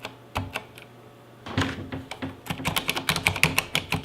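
Typing on a Corsair K70 RGB MK2 mechanical keyboard with Cherry MX Red Silent switches. A few keystrokes come at first, then a short pause, then a quick run of typing from about two and a half seconds in.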